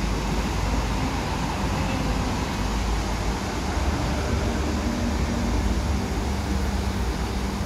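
Road traffic: cars driving across a railway level crossing, with steady engine and tyre noise and a low rumble.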